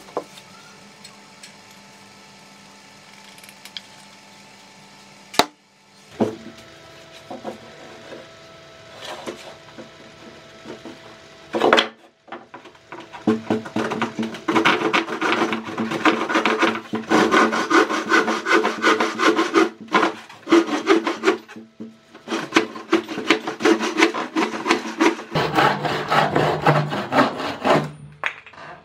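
A homemade wooden folding bow saw is handled and set up, its wooden frame knocking sharply a few times. From about halfway, its 53 cm dry-wood blade cuts through a wooden board in fast back-and-forth strokes, pausing briefly twice before stopping near the end.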